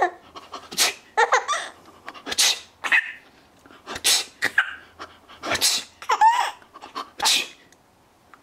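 A man's mock sneezes, "aachhee", about five in a row roughly a second and a half apart, each sharp hiss followed by a six-month-old baby's short squealing laugh.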